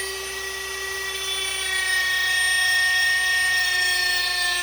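Dremel rotary tool running at high speed on a wooden dowel: a steady high whine whose pitch sags slightly near the end.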